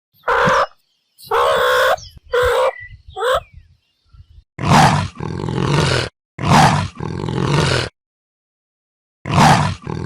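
Meerkat calls: a few short, high chirps and squeals with sliding pitch, followed by three long, rasping, roar-like calls.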